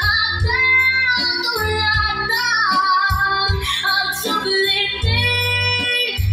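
A recorded song with a high singing voice over a steady bass line, played through a DIY Yiru-style 10-pair transistor power amplifier under sound test.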